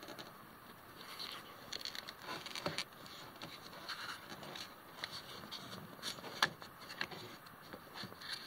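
Handling noise from a hand working a plastic window motor assembly inside a car door: irregular small clicks, taps and rustling, with a sharper knock about six and a half seconds in.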